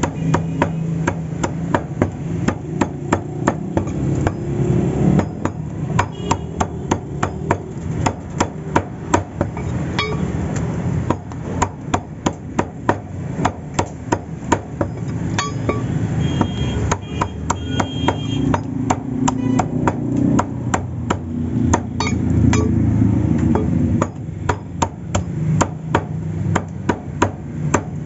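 Steel meat cleaver chopping raw chicken on a wooden log chopping block: runs of sharp knocks, about two or three a second, with short pauses between runs.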